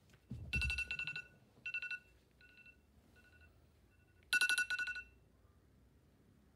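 iPhone alarm going off: rapid electronic beeping in a loud burst about half a second in, softer beeps after it, and a second loud burst at about four seconds before it stops. A soft low thump comes near the start.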